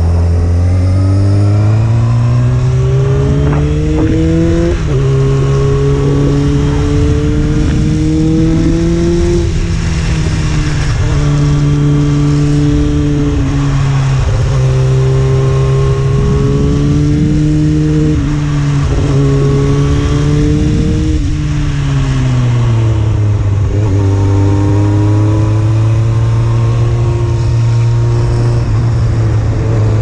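Honda CBR600F4's inline-four engine heard from on board under way. It climbs in revs over the first few seconds, shifts about five seconds in, then rises and eases off repeatedly with the throttle. The revs drop around two-thirds of the way through and settle to a steadier note, with wind noise underneath.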